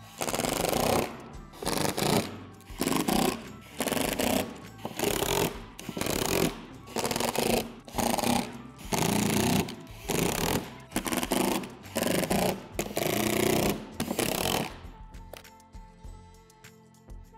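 Cordless power driver running in about a dozen short bursts, driving screws through a window frame into a plastic shed door panel. The bursts stop about 15 seconds in. Background music plays underneath.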